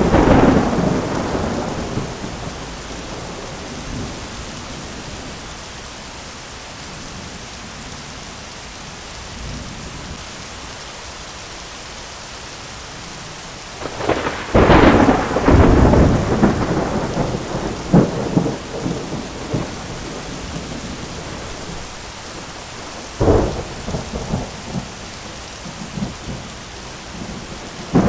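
Steady rain with rolling thunder: one peal fading away at the start, a loud, crackling peal about halfway through that rumbles on for a few seconds, a shorter sharp clap near the end, and a new peal beginning just as it ends.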